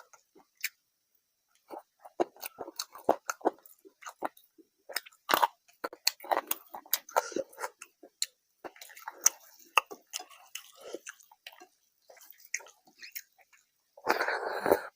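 Close-miked eating of a rice-and-curry meal: wet chewing, lip smacks and sharp mouth clicks come in uneven clusters with short pauses between them. Near the end there is a louder burst lasting under a second.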